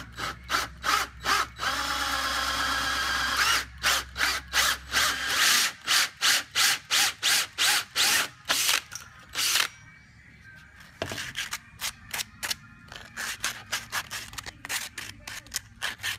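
Cordless drill with a hole saw cutting through a black plastic speaker mounting bracket. It runs in short even pulses, then steadily for about two seconds, then in quick regular pulses about two to three a second. Fainter strokes follow in the last few seconds.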